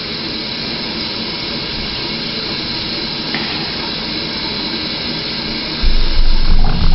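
Steady loud background hiss, even and unchanging, with a louder low rumble starting near the end.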